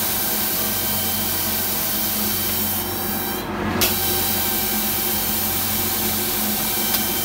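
Automatic paint-spraying machine running: a steady air-spray hiss over a constant machine hum. The hiss cuts out for about half a second midway, as the spray gun switches off and on, with a small click near the end.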